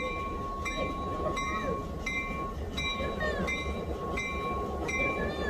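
A bell dinging steadily, about three strikes every two seconds, over a train's low rumble.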